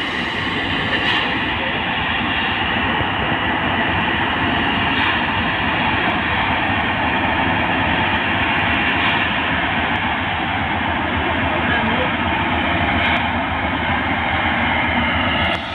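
Diesel-hauled freight train of loaded hopper wagons running along the track: a steady rumble of locomotive engine and wheels on rail.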